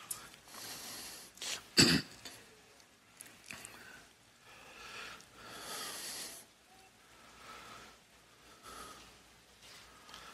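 Soft breaths taken close to a speaker's microphone during a pause in speech, coming every second or two. About two seconds in there is one short, sharp sound, the loudest in the stretch.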